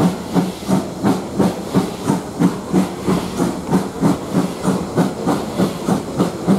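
LMS Ivatt Class 2MT 2-6-2T tank engine No 41313 working hard as it pulls away. Its exhaust chuffs come about three a second, each with a hiss of steam, and quicken slightly as the train gathers speed. Heard from an open carriage window behind the engine.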